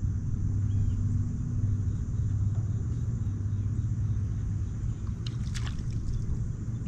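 Bow-mounted trolling motor humming steadily as it holds the boat in place on spot lock, with a low rumble under it. The hum eases off about five seconds in.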